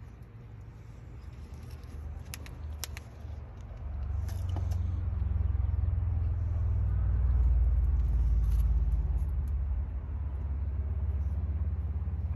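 A low rumble swells about a third of the way in, peaks in the middle and eases toward the end. A few light clicks come before it.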